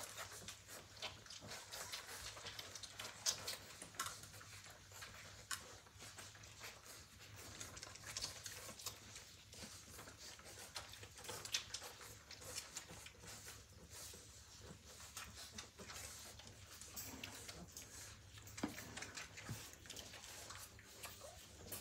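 Litter of Australian cattle dog puppies nursing from their standing mother: faint suckling with many small, quick wet clicks throughout.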